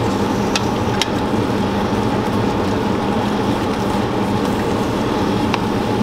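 Noodles and scrambled eggs sizzling in a stainless steel pan while a wooden spoon stirs them. There are a few light clicks of the spoon against the pan over a steady low hum.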